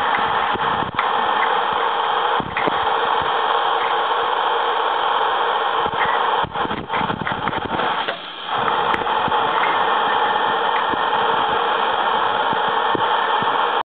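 Steady, loud rushing noise with a few light clicks and taps from phone parts being handled on a table; the noise briefly dips a few times.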